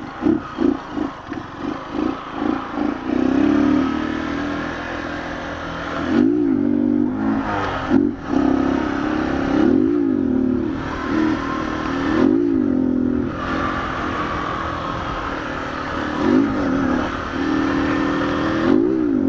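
2008 Honda CG 150 Titan's single-cylinder four-stroke engine, run without an air filter, pulling the moving bike. The note pulses quickly about three times a second at first, then runs on with the revs rising and falling several times.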